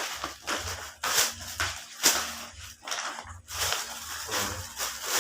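Packaging rustling and crinkling in irregular short bursts as parcels are being unpacked.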